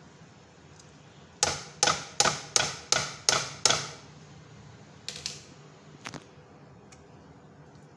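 A rice colander rapped against the rim of a metal cooking pot to knock out the last of the boiled rice: seven sharp knocks about two to three a second, each with a brief ring, then three lighter knocks.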